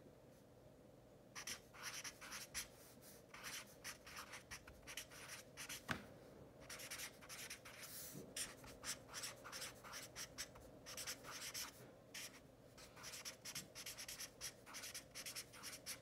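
Marker writing on chart paper: a faint run of quick, short strokes that starts after a second or so of quiet, with brief pauses between words. There is one light tap about six seconds in.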